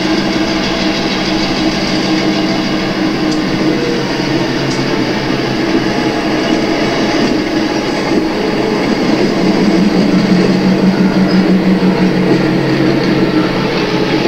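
Model freight train rolling slowly past: wheels running on the track with a steady diesel engine sound from the model locomotive, growing louder about nine seconds in as the locomotive draws near.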